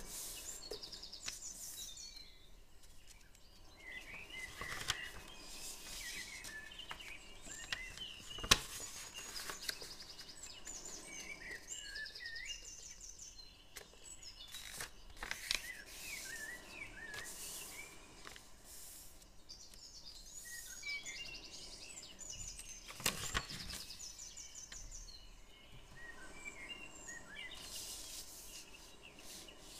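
Birds chirping and trilling, short rising and falling calls and quick trills coming and going, over a faint steady background. Two sharp taps stand out, about a third of the way in and again about three quarters in, with faint paper handling between.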